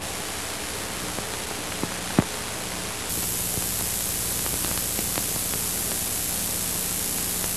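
Steady hiss and static from a VHS tape at the start of playback, with a faint low hum under it. Two short clicks come about two seconds in, and the hiss turns a little brighter and louder about three seconds in.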